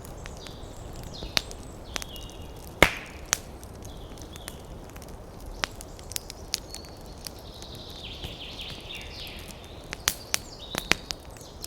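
Outdoor ambience of short chirping bird calls and many scattered sharp clicks and taps. The loudest is a single crack a little under three seconds in.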